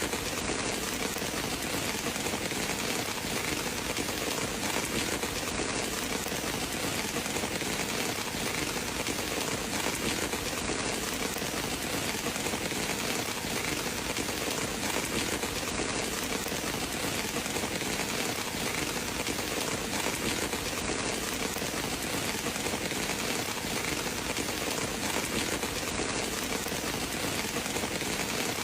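Steady, even rain falling and pattering on surfaces, a dense hiss with no change in intensity.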